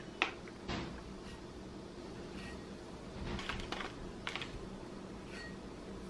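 Dry rolled oats poured from a plastic bag into a glass bowl: a sharp click just after the start, then light clicking patter of flakes on glass and crinkling of the bag in a few short pours, over a low steady hum.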